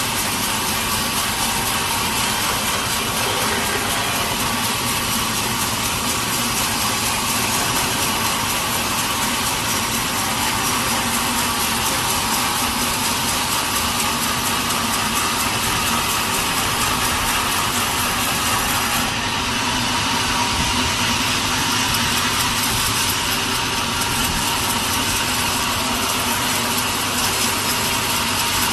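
Sawmill machinery running steadily, a loud unbroken mechanical noise with a sawing edge to it.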